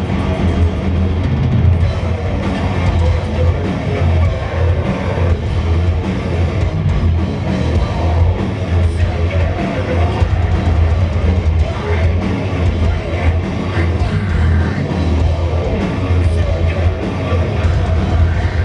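Live thrash/grindcore band playing at full volume: distorted guitars and bass over fast, dense drumming, with a heavy, boomy low end.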